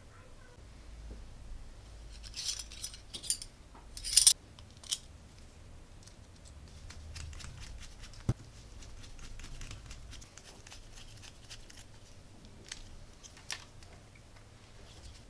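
Small clicks and scrapes of hand assembly: a small screw and a makeblock geared motor's housing being handled and a screwdriver turning the screw. The loudest cluster of clicks comes about three to five seconds in, with one sharp click a little past eight seconds.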